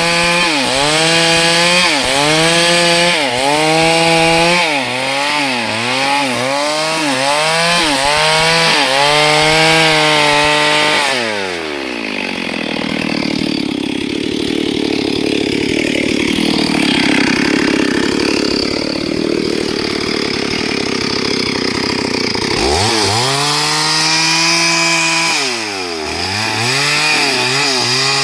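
STIHL MS382 two-stroke chainsaw running at high revs, its pitch dipping and recovering about once a second as it loads up in the cut. About a third of the way in, the clear engine tone gives way to a rougher, steady noise for roughly ten seconds. The dipping engine note then comes back near the end.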